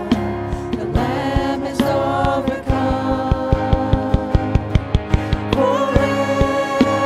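Worship band playing and singing: women's voices holding out the 'hallelujah' refrain over acoustic guitar, electric guitar, keyboard and a cajon. The cajon strikes get busier about halfway through.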